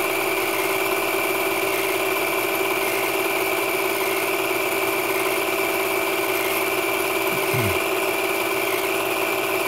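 8mm film projector running: a steady mechanical whir with a constant hum and hiss.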